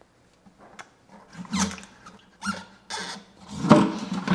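Old reverse osmosis membrane being twisted and pulled out of its filter housing with pliers: a series of short squeaks as the membrane and its gasket drag against the housing wall, starting about a second and a half in and getting louder toward the end.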